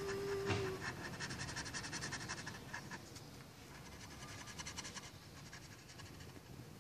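Coloured pencil scratching across paper in quick back-and-forth shading strokes, fading after about five seconds. A steady hum-like tone stops under a second in, with a knock just before it.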